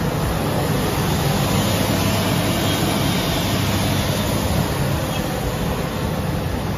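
CBN cam lobe grinding machine running: a steady, even machine noise with a low hum underneath.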